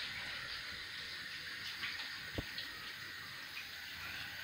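A faint, steady hiss with a few soft ticks and one short low knock about two and a half seconds in.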